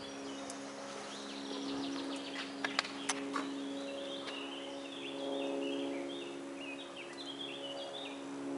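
Songbirds singing: quick descending chirps, then a stepped, repeating phrase in the second half, over a steady low drone of several held tones. A few sharp clicks come about three seconds in.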